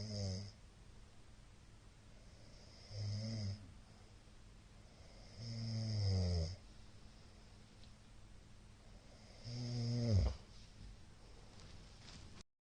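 A middle-aged man snoring in his sleep: four pitched snores a few seconds apart, each tailing off with a falling pitch, the one near the end the loudest.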